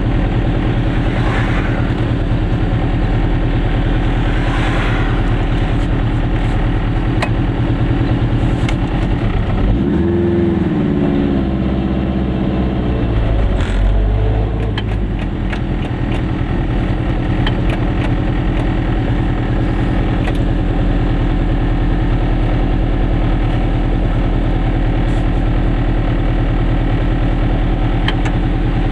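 Goggomobil's two-stroke twin-cylinder engine running steadily while driving. About ten seconds in its note rises and falls for a few seconds as the engine is revved.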